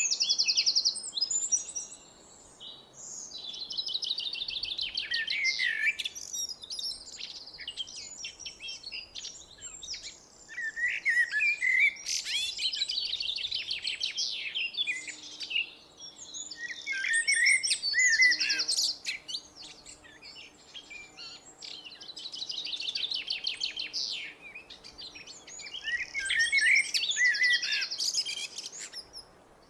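A blackbird singing: phrases of warbled and rapid twittering notes, repeated every few seconds with short pauses between.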